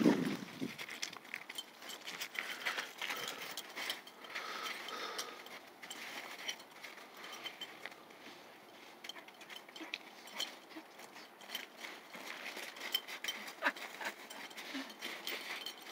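Scattered light crunches and clicks of crusty snow and ice as a corgi runs, pounces and tugs at a toy dragged on a cord.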